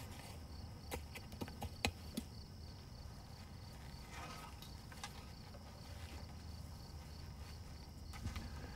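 Quiet outdoor ambience with a steady, faint, high insect chirring, and a handful of light clicks and taps in the first couple of seconds from gloved hands working garden soil.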